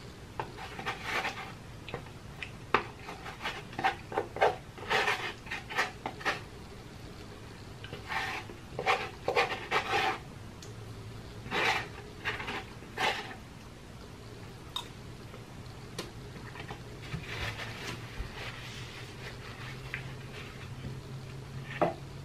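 A man eating close to the microphone: chewing and lip-smacking in clusters of quick short sounds through the first half and again around seventeen seconds in, with a few single clicks of a metal spoon.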